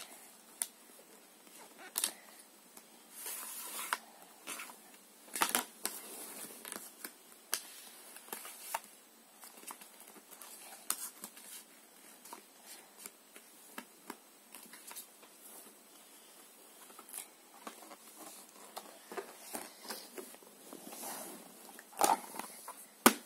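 Thick cardboard pieces of a children's board book being handled: a cardboard wrench piece tapping, sliding and scraping on the glossy pages, with scattered clicks. Near the end a page is turned, with a couple of louder clicks.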